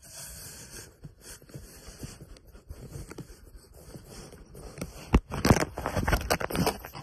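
A cat nosing and rubbing against a phone at close range: scraping and rustling on the microphone with small clicks, and louder knocks and rubs in the second half.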